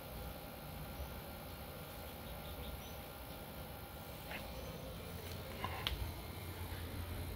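Quiet outdoor ambience: a low, uneven rumble with faint chirping and a couple of brief clicks around the middle.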